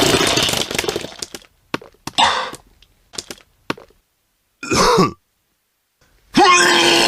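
A person retching and vomiting: a loud wet heave that trails off, a few short gags and spits, and a brief groaning heave about five seconds in. Another loud retch begins near the end.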